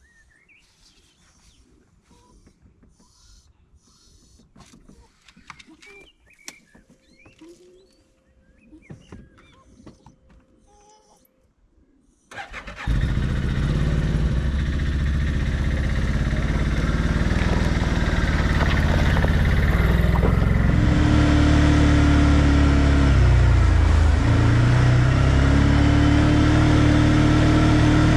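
Faint rustles and small clicks, then about twelve seconds in an ODES 650 ATV's engine starts and runs loudly and steadily. Later its pitch dips and rises again as the quad is ridden along a dirt track.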